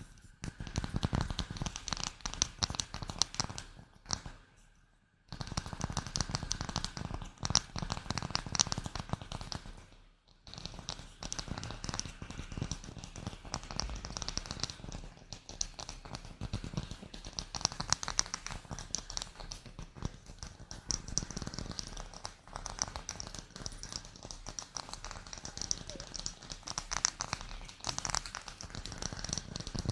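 Close-miked ASMR trigger sounds: rapid, irregular tapping and crackling that breaks off briefly about four seconds in and again about ten seconds in.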